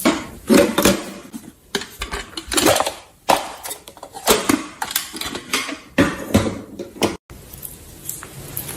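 Slime being worked in a container with a utensil: irregular bouts of squishing and scraping, with sharp clicks and clinks against the container.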